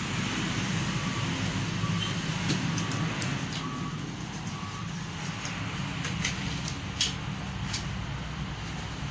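A steady low rumble, with a few faint short beeps in the first half and several light clicks and taps.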